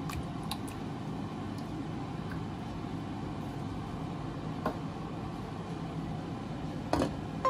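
Steady low rushing kitchen background noise, with a few faint clicks of a metal spoon against the stainless steel sauce pot near the start.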